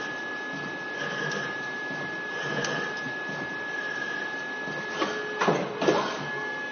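CNC lathe thread-cutting a spinning metal shaft: steady machine running with a constant high whine, and three short louder bursts a little past five seconds in.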